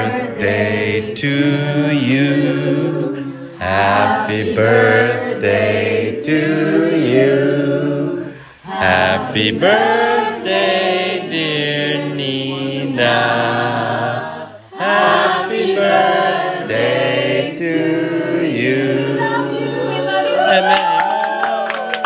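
A group of people singing together in long phrases over low held notes, with two brief pauses between phrases.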